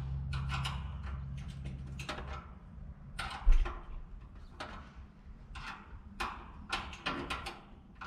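Clicks and scrapes of a small hand tool backing the screws out of the sheet-metal service panel on an air-conditioner condenser unit, with one low thump about three and a half seconds in.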